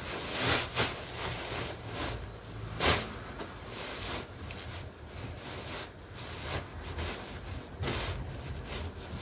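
Full woven plastic rice sacks rubbing and scraping against each other as they are dragged and shifted on a stack. There are sharper rustling bursts about half a second in and again near three seconds in.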